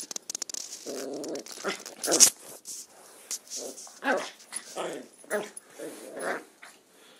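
Border terrier puppy giving a rapid string of short growls and whines, with a few sharp clicks near the start.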